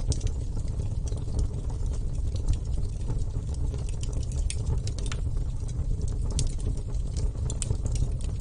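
Wood fire burning: a steady low rumble of flames with irregular crackles and pops from the burning wood.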